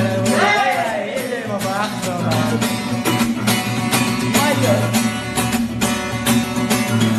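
Music: a pop song's intro with a steady beat, plucked guitar and a gliding melody line over a sustained bass.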